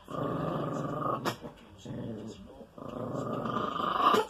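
Small dog growling over a rawhide chew in three long, rough growls, the first and last each cut off by a brief sharp sound: resource guarding.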